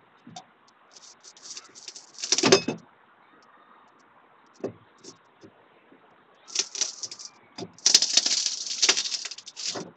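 Hand tools working at the panel by the boat's battery box. There are two bouts of scraping and metallic clinking, the loudest crash about two and a half seconds in, with a few separate knocks between.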